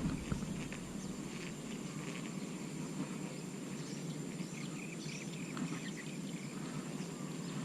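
Outdoor ambience of insects keeping up a thin, steady high-pitched drone over a low rumble of background noise, with a few faint scattered ticks.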